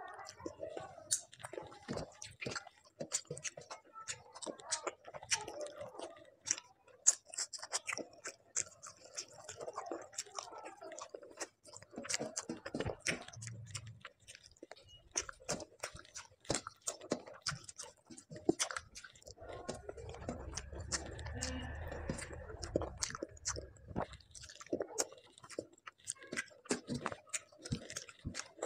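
Close-up wet chewing of a mouthful of rice and fish curry eaten by hand, full of quick sharp mouth clicks.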